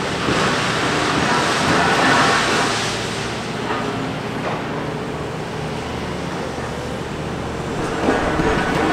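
Hitachi Zaxis 490 excavator working on demolition: its diesel engine runs steadily, with louder stretches of harsh scraping noise about a second in and again near the end.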